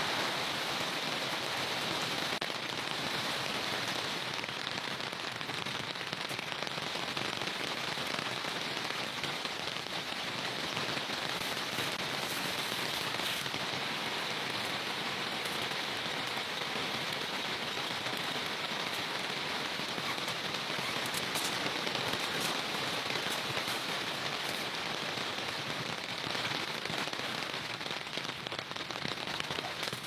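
Steady rain falling: an even, dense patter of drops on wet ground.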